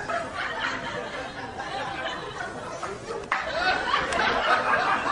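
Several people chattering and snickering under their breath. A sharp click or knock comes a little past three seconds in, followed by louder laughter and voices.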